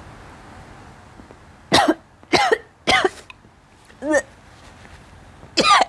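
A woman coughing in five short, loud bursts, brought on by the burn of ghost pepper chili noodles.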